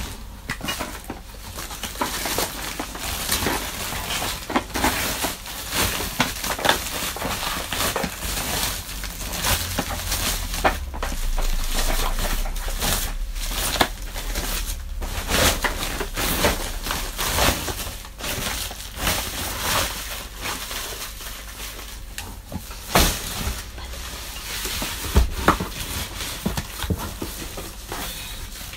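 Thin plastic bag crinkling and rustling as it is handled, an irregular run of crackles without a break.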